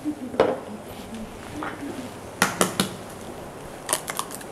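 Kitchen cookware and utensils being handled: a few scattered light clicks and knocks, two close together about halfway through and a small cluster near the end.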